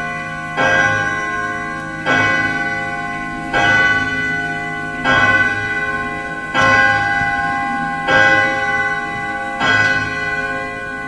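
Horror-film soundtrack from a television: a deep bell-like toll struck seven times, about a second and a half apart, each strike ringing on into the next.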